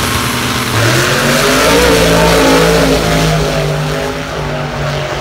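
Drag race car launching and accelerating hard down the strip, its engine revving up in pitch and then pulling at a steadier pitch with brief breaks.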